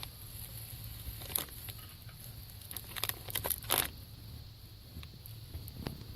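Scattered rustling and crackling, with a cluster of louder crackles about three to four seconds in, over a steady low hum.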